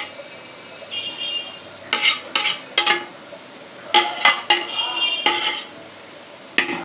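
Steel spoon clinking and scraping against the side of a metal pot while cooked pulao rice is stirred and turned over. The sharp clanks come in bunches about two seconds in, again around four seconds, and once more a little later, each with a short metallic ring.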